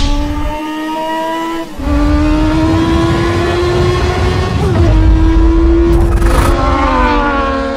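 Yamaha R3 sport bike's engine running at high revs, its pitch creeping slowly upward. The note breaks briefly a little under two seconds in and eases down near the end. A whoosh sweeps past about six seconds in.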